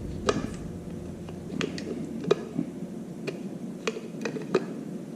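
Scattered small plastic clicks and taps, about seven over a few seconds: a motorcycle turn-signal bulb socket being pushed and twisted back into its plastic housing by hand.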